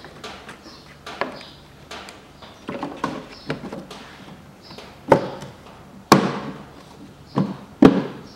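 Cabin air filter housing cover being pushed into place and snapped into its latches: a series of sharp clicks and knocks, the four loudest in the second half.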